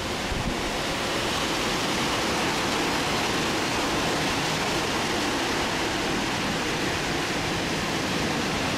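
Strong thunderstorm wind rushing through trees, a steady hiss.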